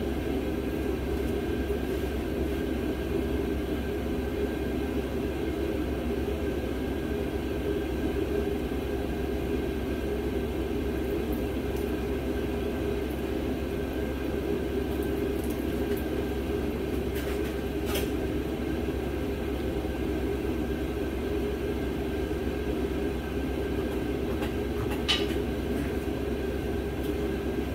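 Steady low machine drone with an underlying hum, holding an even level, with two faint clicks in the second half.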